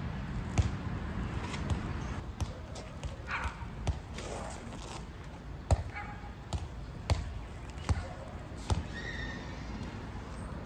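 Hands and sneakers slapping and scuffing on asphalt during a crawling floor movement, with sharp irregular taps about once a second, the loudest a little past halfway.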